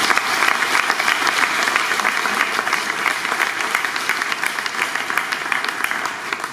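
Audience applauding, a steady round of clapping that starts to die away near the end.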